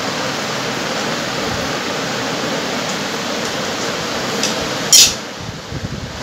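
Steady, even rushing hiss of background noise, like a fan running. About five seconds in there is a single sharp click, and after it the hiss dips for a moment.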